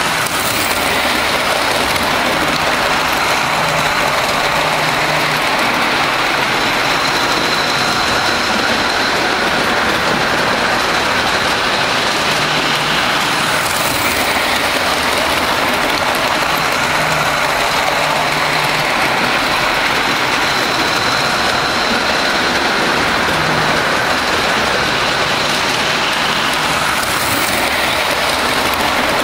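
G-gauge model freight train rolling along the track: a steady rumble and hiss of wheels and motors, with no breaks or pauses.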